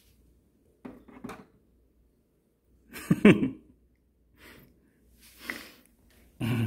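A few short, breathy bursts of a person's voice separated by quiet gaps. The loudest, about three seconds in, is a soft exclaimed 'ta-da'.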